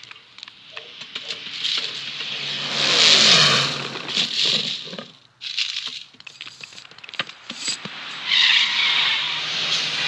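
Movie sound effects of cars on a road: tyres skidding as cars brake hard and engines passing, one engine dropping in pitch about three seconds in. The sound cuts out briefly a little past halfway, then another long skid comes near the end.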